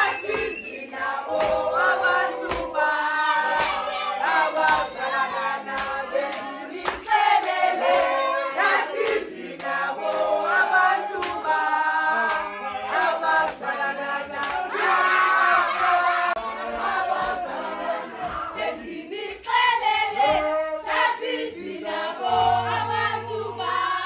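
A group of men and women singing together with rhythmic hand clapping. Near the end it gives way to music with a steady low bass note.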